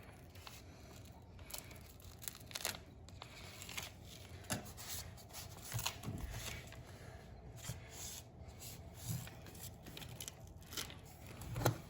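Vinyl sheet flooring and seam tape being handled: faint, irregular rustling and crinkling with scattered short crackles.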